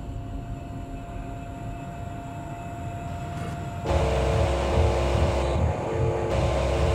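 A low steady hum, then about four seconds in a loud roaring rush with a deep rumble sets in suddenly: a gas torch flame heating glass.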